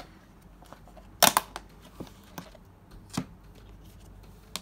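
Plastic lids of takeaway food containers being pried off and handled: a few sharp plastic clicks and snaps, the loudest a quick double click a little after a second in.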